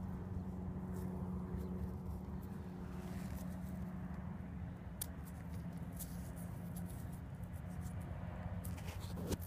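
A steady low hum, with faint scratches and a few clicks from fingers rubbing soil off a small dug-up medal.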